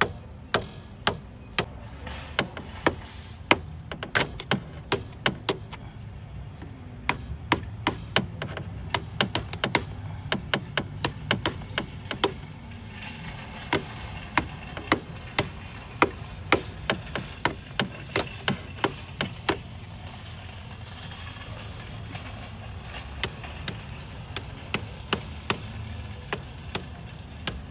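Dozens of sharp knocks from a blunt tool tapping a car battery terminal clamp down onto its post, one to three a second and irregular, with a short lull about twenty seconds in. A steady low rumble runs underneath.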